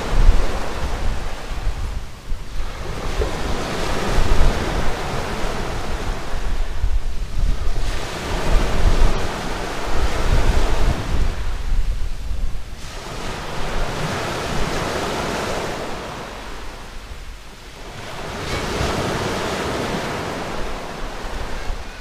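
Black Sea surf breaking and washing up a fine-pebble beach, each wave rising and falling away about every five seconds, with wind rumbling on the microphone.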